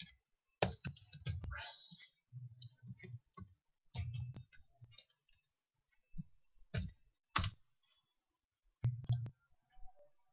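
Computer mouse clicking: scattered sharp clicks and short quick runs of them, with gaps of quiet between.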